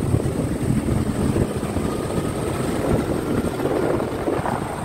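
Motorbikes running along a road at speed: a steady low engine and road rumble mixed with the rush of moving air.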